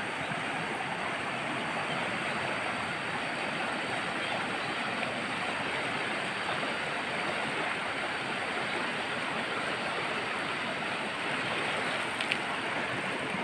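Fast-flowing river rushing steadily past the bank, with a faint click near the end.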